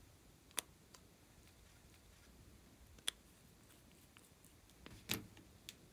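A plastic lipstick tube and its cap being handled and closed: four sharp clicks, the loudest and fullest about five seconds in.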